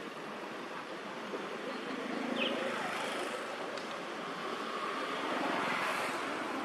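Steady outdoor background noise, rising a little about two seconds in, with a brief high chirp about two and a half seconds in.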